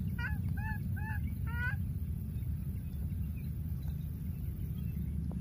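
Baby monkey giving a quick series of about five short, high, arching calls in the first two seconds, over a steady low background rumble. These are the calls of a young monkey separated from its playmate.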